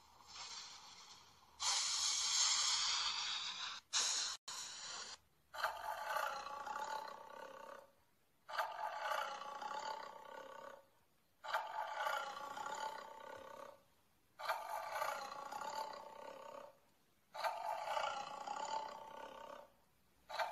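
Animated creature sound effects from an augmented-reality card app: a harsh, loud rush about two seconds in, then a long growling roar that repeats the same way about every three seconds as a loop.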